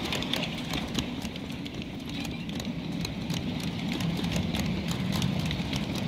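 Ride-on miniature railway train rolling along its track: a steady low rumble with a fast run of clicks from the wheels over the rail joints.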